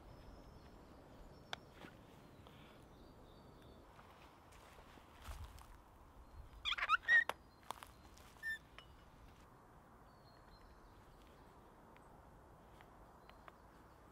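Quiet woodland ambience with a few faint bird chirps. About seven seconds in, a short burst of metallic clinks and knocks from metal hand tools being set down on a log, with one brief ringing note just after.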